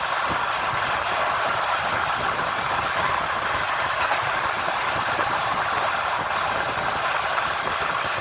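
Moving passenger train: the steady running noise of wheels on rail, with no single knock standing out.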